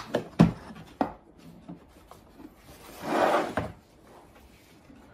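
Hard plastic carrying case of a hammer drill being handled and its lid opened: a few sharp knocks and clicks in the first second, then a brief scraping rub about three seconds in.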